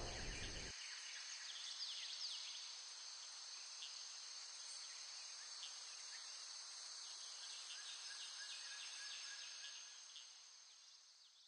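Faint outdoor ambience: a steady high insect drone, like crickets, with scattered short bird chirps. It fades out about ten seconds in.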